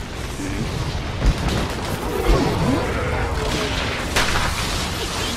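Anime battle sound effects: continuous heavy rumbling with blasts and thumps, a wavering sound sliding up and down in pitch around the middle, and a sharp crack a little after four seconds in.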